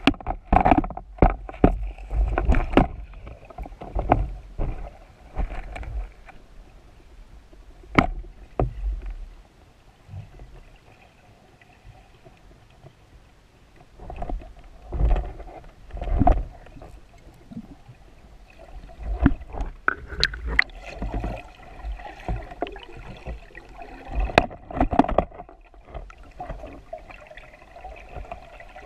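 Muffled underwater sound picked up through a camera's waterproof housing while freediving: water rushing past and irregular knocks and bumps from the diver's movements and gear, over a faint steady hum.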